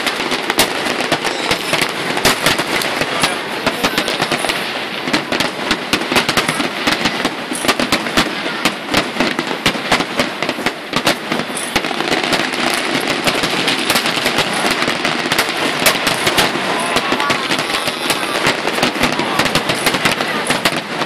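Aerial fireworks bursting in a dense, unbroken barrage of bangs and crackles, many shells going off at once.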